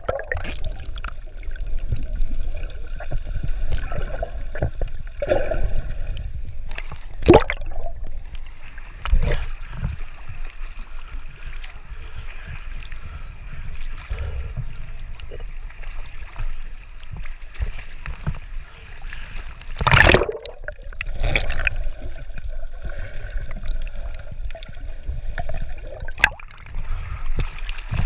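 Sea water sloshing and gurgling against a camera bobbing at the surface while snorkeling, going under and breaking the surface, with a few sharp splashes.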